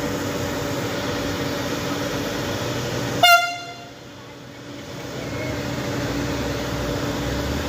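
Steady hum from a standing ETR 104 'Pop' electric multiple unit, then one short toot of its horn about three seconds in. After the toot the hum drops away and slowly builds again.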